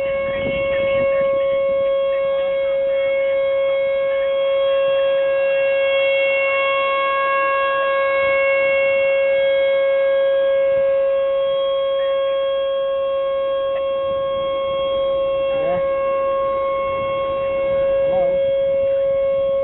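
Outdoor tornado warning siren sounding one steady, unwavering tone, its loudness swelling and easing slowly.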